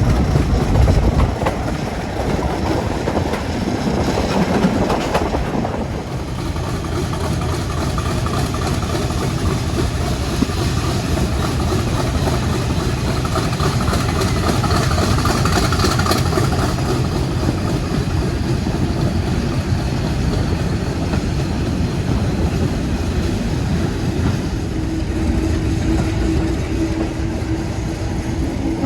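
Passenger train hauled by Class 50 diesel locomotive 50026 running along the line, its wheels clicking over the rail joints in a steady, continuous noise. A steady tone joins in near the end.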